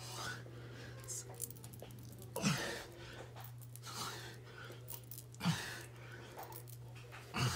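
A man's short grunting exhalations, three of them about two to three seconds apart, in time with his push-up reps, over a steady low hum.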